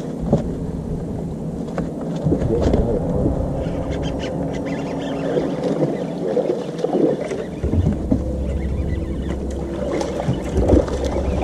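Steady hum of a bass boat's bow-mounted electric trolling motor, with scattered clicks and knocks from rods and reels on the deck. A deeper low hum comes in about two-thirds of the way through.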